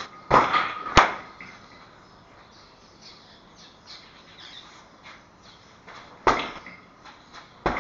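Four sharp knocks or impacts: two close together in the first second, then two more near the end.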